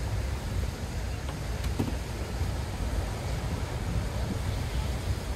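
Steady low rumble of wind buffeting the microphone, with a couple of faint clicks about two seconds in.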